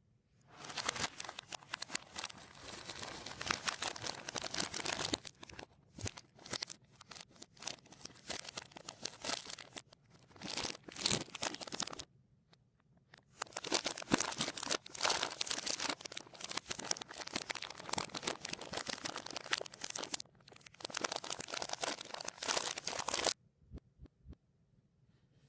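Plastic snack wrappers crinkling and tearing open, played in reverse. Two long stretches of dense crackling are split by a short pause about halfway, and each ends abruptly.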